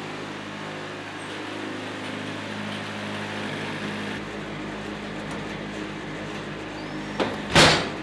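Wood-Mizer portable band sawmill's engine running steadily at an even pitch. A single loud clunk comes about seven and a half seconds in.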